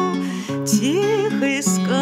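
A woman singing a Russian bard song with vibrato, accompanying herself on acoustic guitar with plucked and strummed chords.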